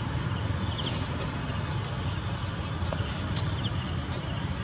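Steady high-pitched drone of insects in the forest canopy, with a low rumble underneath and a short chirp every couple of seconds.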